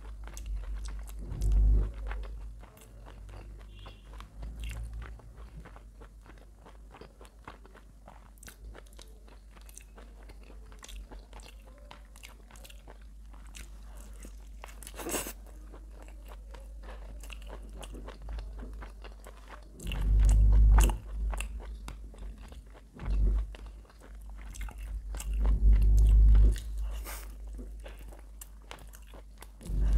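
Close-miked biting and chewing of a crispy fried chicken leg, with crunchy bites and steady chewing. A few loud dull thumps come about two-thirds of the way in and again near the end.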